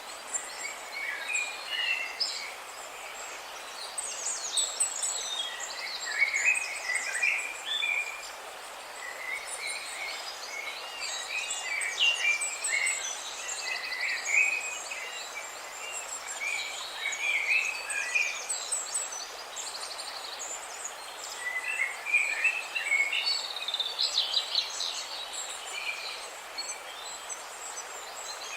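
Several birds chirping and trilling in quick overlapping calls over a steady rush of splashing water.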